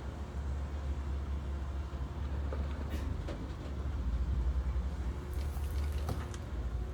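Steady low rumble of a running engine, with a few light clicks and knocks about three seconds and six seconds in.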